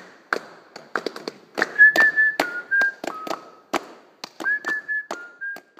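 A person whistling a short phrase of a few held notes that step down in pitch, played twice, over a run of irregular sharp taps and knocks.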